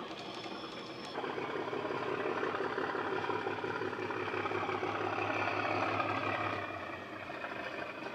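Model Bachmann Class 37 locomotive's DCC sound decoder playing the SWD recording of its English Electric diesel engine through an EM2 speaker, running under power. It steps up about a second in and eases back slightly near the end.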